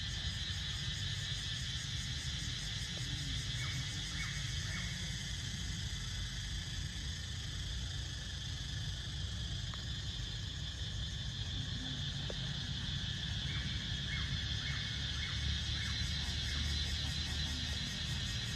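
Steady high drone of an insect chorus over a low rumble, with a few short high squeaks or chirps in two brief clusters, around four seconds in and again near the end.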